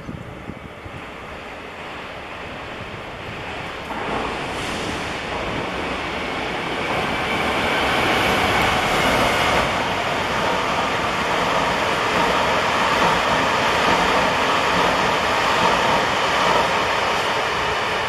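Rushing noise of a train running on the rails, swelling steadily over the first several seconds and then holding loud and even.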